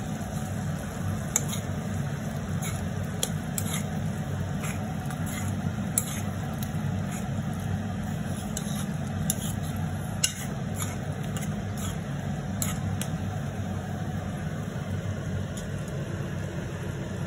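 Tomato and jaggery chutney simmering in a steel kadai, with small irregular pops and crackles as the thick sauce spits, over a steady low hum.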